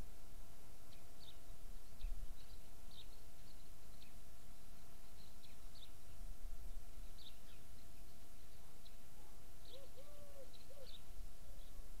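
Small songbirds chirping faintly, short high calls scattered through, with a few lower arched notes near the end, over a low rumble and a faint steady hum.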